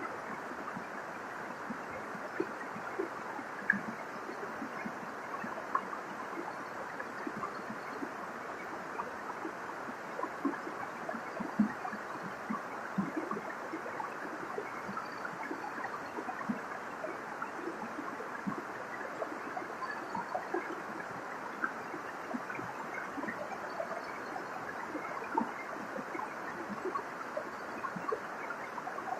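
Waterfall: a steady rush of falling water, flecked with many small irregular splashes.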